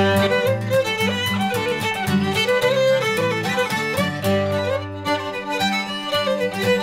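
Fiddle playing a Shetland reel with strummed steel-string acoustic guitar accompaniment.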